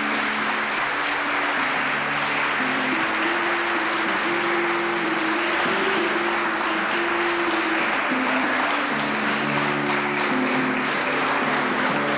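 Audience applauding steadily over music, a slow melody of long held notes.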